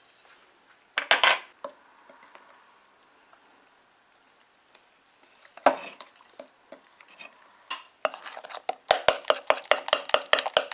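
Metal spoon stirring a thick flour batter in a glass bowl, clinking quickly against the glass, several times a second, from about eight seconds in. Before that there are a couple of single knocks.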